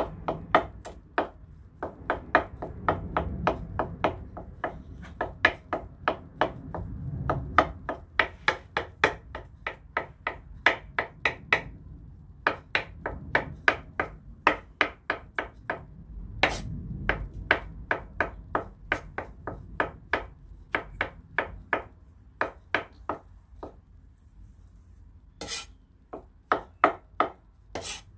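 Kitchen knife chopping hard-boiled eggs on a wooden cutting board: quick, even knocks of the blade on the board, about three a second, with a short pause near the end.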